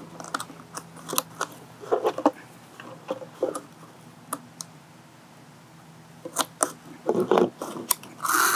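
Thin plastic water bottle crinkling and crackling in the hands, with scattered sharp clicks, as it is squeezed and handled while a cord is tied through holes in it; the crackling comes in denser bunches about two seconds in and again near the end.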